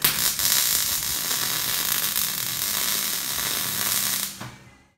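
MIG welding arc from an HTP MIG welder laying a weld on steel plate: a steady hiss that starts abruptly and stops after about four seconds.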